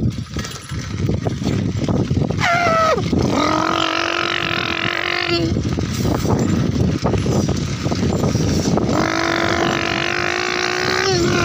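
Bicycle ridden over a bumpy gravel track, a steady rolling rumble with small knocks and rattles. Over it, twice, a long steady pitched tone of about three seconds: the first opens with a quick downward slide and the second ends with one.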